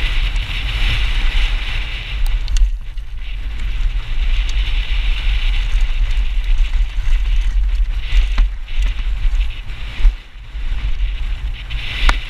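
Wind rushing over a rider-worn GoPro's microphone on a fast mountain-bike descent, with steady rumble from the tyres on a rough trail. A few sharp knocks from the bike come through, around two and a half seconds in, past eight seconds and near the end.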